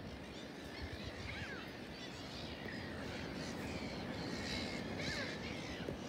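Large flock of gulls calling, many short overlapping calls from across the field.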